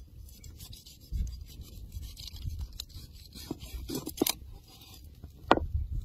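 A steel cleaver being handled over a wooden cutting board: a few short, sharp clicks and light scrapes, the loudest near the end, over a low rumble.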